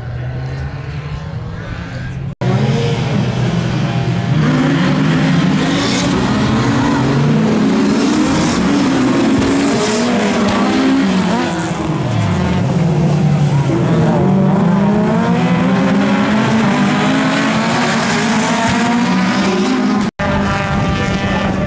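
Several racing cars' engines running hard on the circuit, their pitch rising and falling as they rev and change gear. The sound drops out abruptly about two seconds in and comes back louder, then drops out briefly again near the end.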